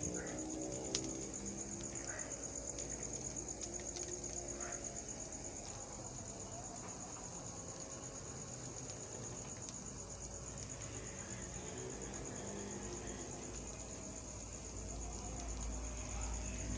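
An insect trilling: one steady, high-pitched trill that pulses rapidly without a break. A single short click sounds about a second in.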